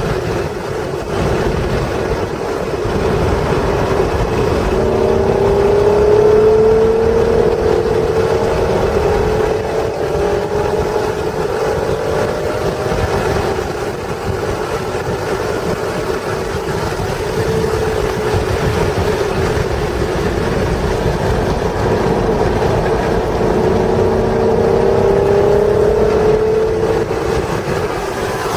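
1996 Acura NSX's stock 3.0-litre V6 engine pulling hard at track speed, its pitch rising in two long climbs, a few seconds in and again near the end, over a steady low rumble of road and wind noise.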